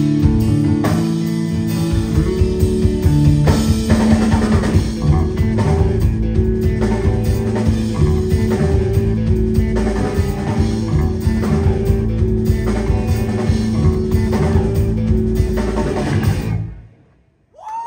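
Live instrumental band music: electric guitar and bass guitar lines over a drum kit. The music stops about a second before the end.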